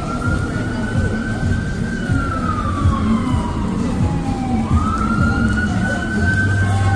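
Emergency vehicle siren wailing: a single tone that climbs slowly, slides down over a few seconds and climbs again, over a steady low rumble of city street noise.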